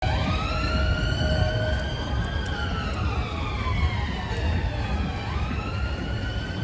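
Emergency vehicle siren on a slow wail: it rises, holds, falls over about three seconds, then climbs again about five seconds in. A steady low rumble of traffic and wind runs beneath it.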